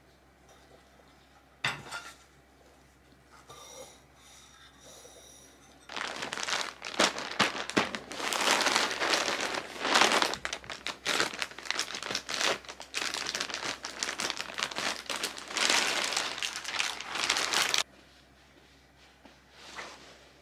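Thin plastic packaging crinkling loudly as hands handle and pull the clear wrap off a cushion. It starts about six seconds in and cuts off suddenly a couple of seconds before the end, after a few faint clicks and a soft knock.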